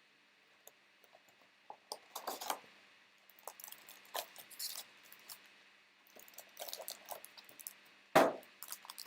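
A trading-card hobby box and its packs being handled: scattered small clicks and crinkles of cardboard and foil, with one louder thump about eight seconds in.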